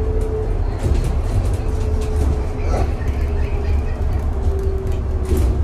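Bus in motion heard from on board: a continuous low rumble of engine and road, with a thin steady whine that fades in and out, and frequent small rattles and clicks from the body and fittings.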